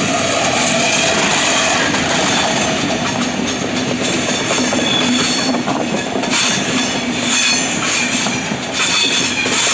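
SBB Re 421 electric locomotive and EuroCity passenger coaches rolling past on curved track, wheels clattering on the rails with high, on-and-off squeals from the wheels that grow stronger in the second half.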